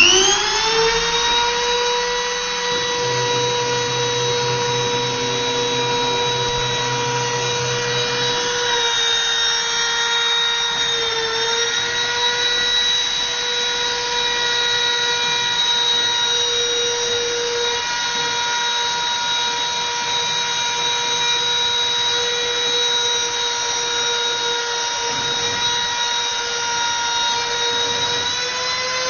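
Handheld rotary tool serving as the spindle of a small CNC mill, spinning up with a rising whine at the start and then running at a steady high whine as it engraves a plastic sheet. Its pitch sags briefly about eleven seconds in and rises slightly near the end.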